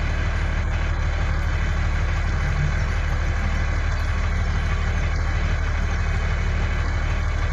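A truck engine running steadily at idle: an even low drone with a fast, regular pulse.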